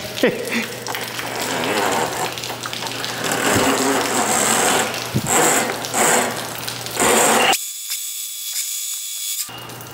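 Electric drum-type drain-cleaning machine running, with a steady motor hum and the steel snake cable rattling and whirring as it is fed by hand into a clogged drain cleanout. The low part of the sound drops out for about two seconds near the end.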